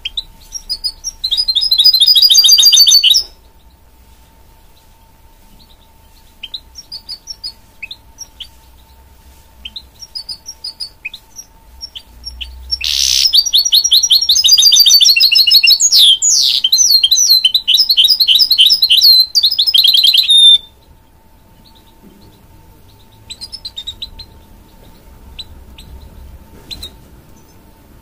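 Caged goldfinch × canary hybrid (goldfinch mule) singing: a short burst of rapid trilled song, then scattered short calls, then a long, loud song of rapid repeated notes and trills lasting about seven seconds, ending in softer calls.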